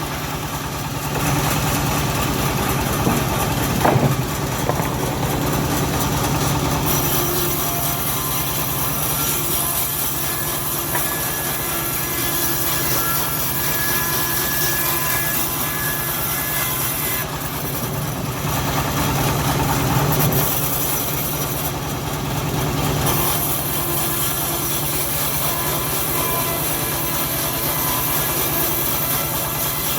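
Engine of a homemade bandsaw sawmill running steadily while the saw works through an old teak log, with a brief knock about four seconds in.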